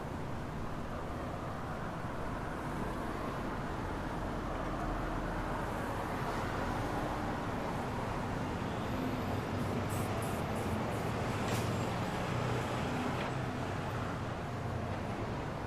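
City street traffic: a steady rumble and hiss of passing vehicles, growing a little louder in the middle, with a few brief sharp high ticks about ten to twelve seconds in.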